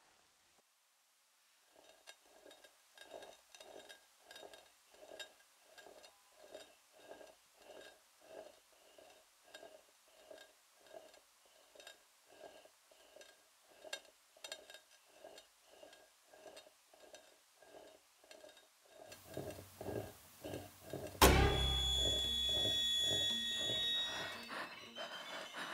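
Soft metallic clinking repeating about twice a second, steady and even. About 21 seconds in, a sudden loud bang is followed by a sustained high ringing.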